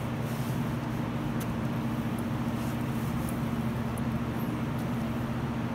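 Steady low mechanical hum, an unchanging drone, with a few faint light clicks.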